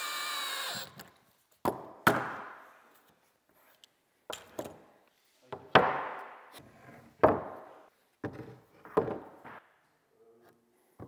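Cordless drill-driver whirring briefly as it drives a pocket-hole screw, its pitch dropping as the screw seats, then a string of irregular, sharp knocks and thunks that echo in the shop as tools and trim pieces are set down and moved about on the wooden work table.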